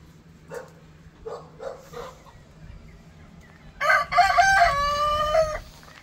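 A rooster crowing once, a loud call of about two seconds near the end that steps in pitch and ends on a held note. A few short clucks come in the first two seconds.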